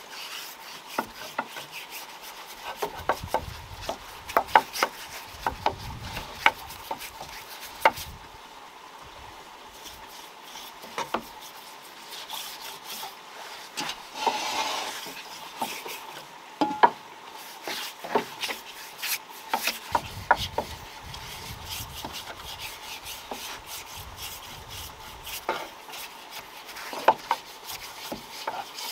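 Paintbrush strokes rubbing and tapping on a wooden pole railing, with irregular light clicks and knocks. About halfway through there is a short scraping as the brush is dipped into the paint tin.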